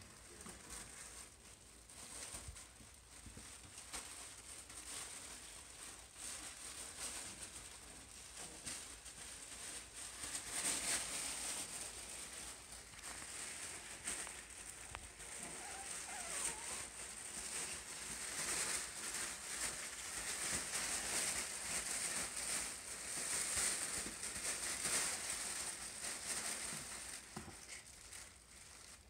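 Havanese puppies scampering about on a tile floor and puppy pads: many small clicks of paws and claws with rustling and crinkling of the pads and a fabric play tunnel, busier from about ten seconds in.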